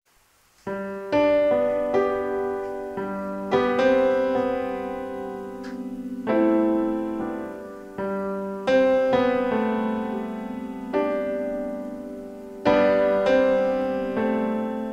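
Background piano music: slow, gentle chords struck every two seconds or so, each ringing and dying away, starting just under a second in.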